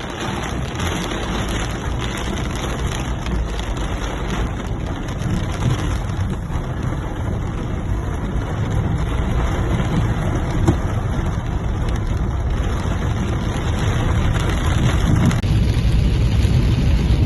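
Heavy rain falling, with a steady low rumble beneath it that grows louder and deeper near the end.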